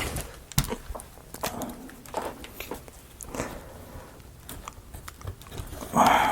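Small clicks and taps of thin laser-cut wooden kit parts being handled and pressed into slots, with a louder rustle near the end.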